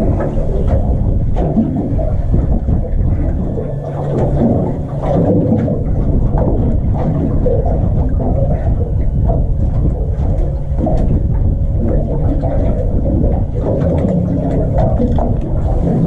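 Boat's engine idling, a steady low hum with a noisy rumble around it.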